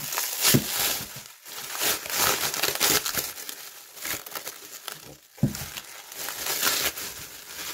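Clear plastic wrap crinkling and rustling in irregular bursts as it is pulled off a wooden item by hand.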